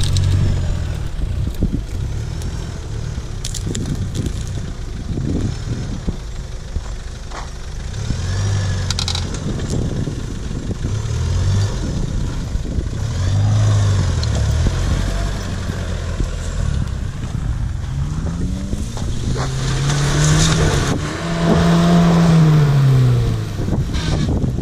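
Off-road 4x4 engines pulling at low speed over rough ground, with branches cracking and scraping against the body and tyres crunching over dirt and gravel. Near the end an SUV's engine revs up and falls back as it climbs a bank.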